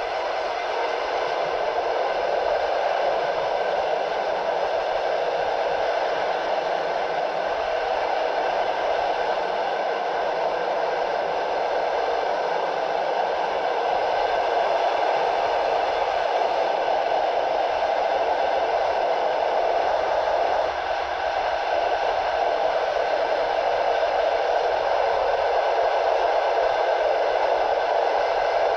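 Steady rushing noise of a moving passenger train heard at an open carriage window: wheels running on the rails and air rushing past, with the wind noise cut down by processing so that an even hiss remains.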